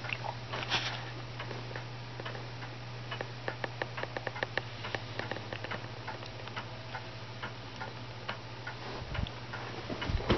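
Mechanical clock ticking, with a couple of soft thumps near the end.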